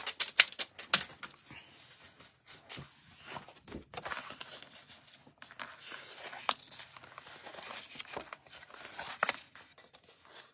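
Cardstock being handled and folded along its score lines: paper rustling and sliding, with scattered sharp taps and clicks, a few in the first second and a stronger one near the end.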